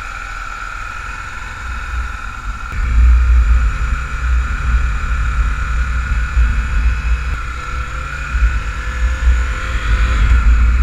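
Honda XR250 Tornado's single-cylinder engine running as the motorcycle rides off on wet roads. A heavy low wind rumble on the microphone builds up about three seconds in.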